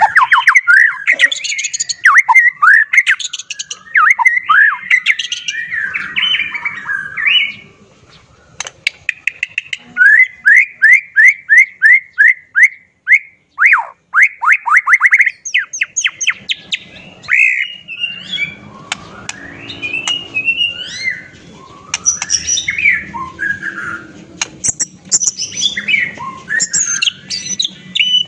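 White-rumped shama (murai batu) singing a loud, varied song of whistles, chatters and squawky notes, including a quick run of about a dozen rising notes, about four a second, midway through.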